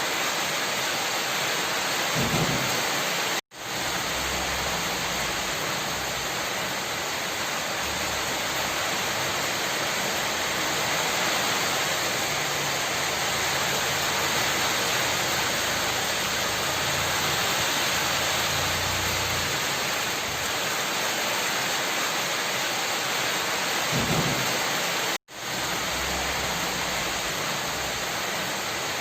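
Steady, heavy rain, with a low rumble now and then. About three seconds in and again near the end, the sound cuts out completely for a split second.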